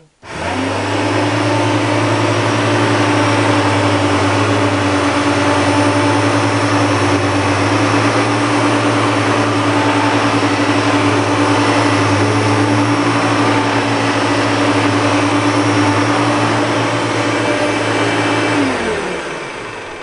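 Two Hoover Turbopower upright vacuum cleaners, a U2716 Boost (not on boost) and a U2798, switched on together and running steadily with a motor hum and whine. Near the end they are switched off and the motors wind down, falling in pitch.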